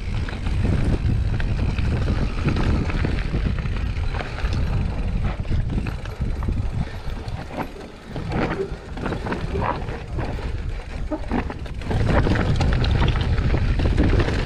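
Wind buffeting the action-camera microphone over the rumble of mountain-bike tyres rolling on a rocky dirt trail. The rumble eases about seven seconds in, leaving a run of sharp clacks and rattles from the bike over rough ground, then comes back loud about twelve seconds in.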